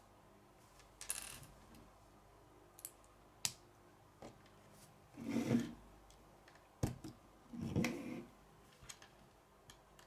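Plastic Lego pieces being handled on a wooden table and pressed onto a small Lego figure: a few sharp clicks and some short scraping handling noises.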